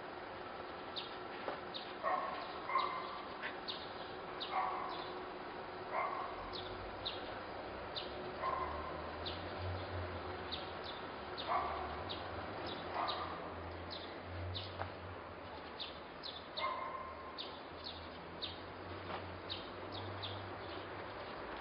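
A dog barking in short yips about eight times, over many small high bird chirps. A low hum comes in about six seconds in and fades near the end.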